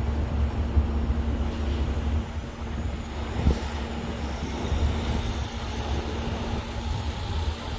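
Steady low rumble of street traffic, with the hum of a heavy vehicle's engine running that stops near the end.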